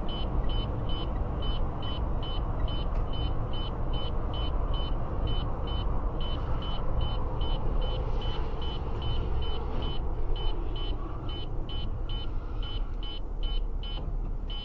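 A vehicle running with a steady low rumble, while an electronic beeper sounds short high beeps about three times a second, with a few brief gaps.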